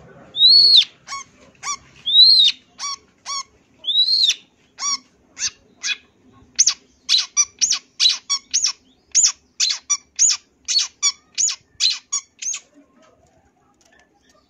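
Long-tailed shrike (cendet) singing: three drawn-out whistles that rise and fall, each followed by a couple of short sharp notes, then a fast run of about twenty short, sharp chip notes, about two a second, that stops near the end.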